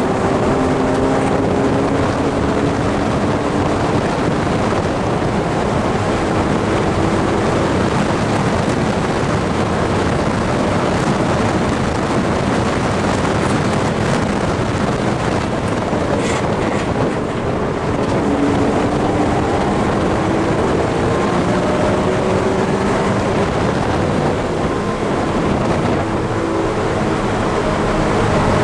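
BMW E46 M3's S54 straight-six at racing revs, heard inside the cabin. It pulls up toward redline in 4th with a rising pitch, drops back as the car brakes and shifts down to 3rd around the middle, then climbs again. Heavy wind and road noise run under it throughout.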